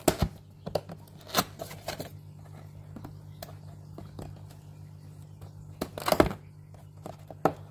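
Cardboard box being opened by hand, fingers prying at the lid's tuck flap: scattered taps, scrapes and cardboard rustles, loudest in a cluster about six seconds in. A steady low hum lies under it.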